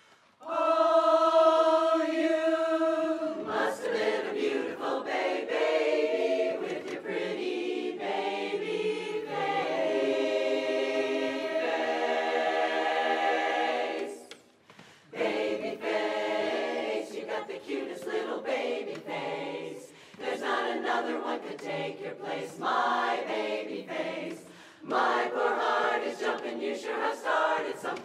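Women's barbershop chorus singing a cappella in close four-part harmony. An opening chord is held for about three seconds, then the song moves on, with a short break about fourteen seconds in before the singing resumes.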